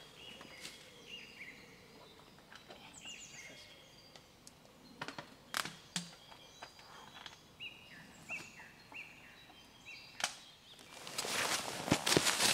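Forest birds calling with runs of short, high, falling chirps, with a few sharp clicks or cracks in between. A louder rough, scratchy noise with clicks comes near the end.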